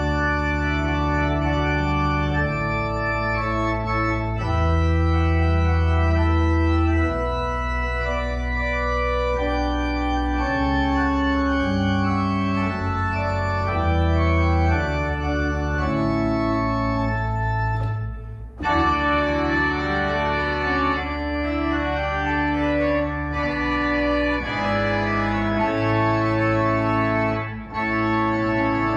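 Electronic organ playing slow, held chords over deep sustained bass notes, with a brief break between phrases about two-thirds of the way through.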